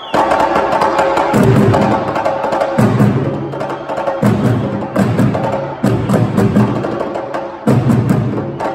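Djembe drums played live in a fast, driving rhythm of sharp hand strokes, with deeper low tones coming in for stretches of a second or so, three times.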